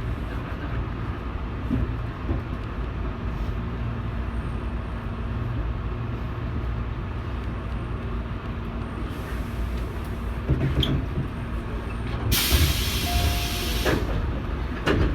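Tobu 8000 series electric train car heard from inside: a steady low rumble, then a loud hiss of compressed air about twelve seconds in, lasting under two seconds.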